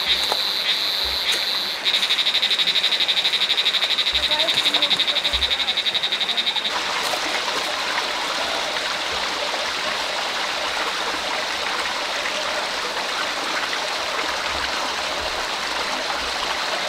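Rushing water of a forest stream, with a calling animal's high-pitched, rapidly pulsing trill over it. About seven seconds in, the trill cuts off abruptly and only the stream remains.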